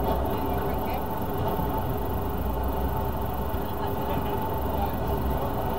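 Jet boat running steadily at speed: a continuous low engine drone mixed with the rush of water, without change.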